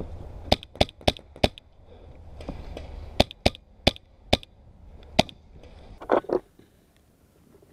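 Paintball markers firing: about nine loud, sharp pops in uneven strings, four in quick succession, then four more, then a single shot, followed by two duller knocks about six seconds in.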